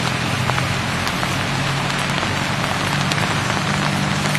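Steady rushing outdoor noise with a low, steady hum beneath it.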